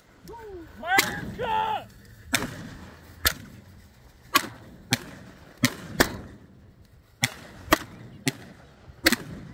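Fireworks going off: about a dozen sharp bangs at irregular spacing, some in quick pairs. A person's shout near the start.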